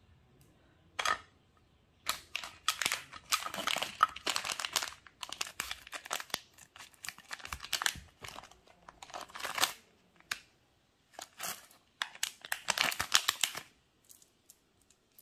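Plastic snack wrapper crinkling and tearing in repeated crackling bursts: a Cadbury Gems packet being torn open and handled.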